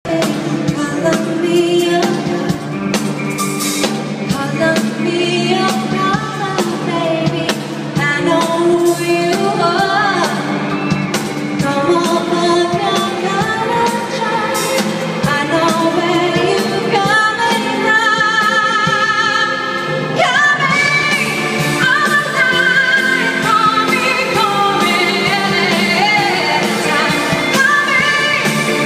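Live pop concert music: a woman singing lead over a band, with a long held note with vibrato about eighteen seconds in.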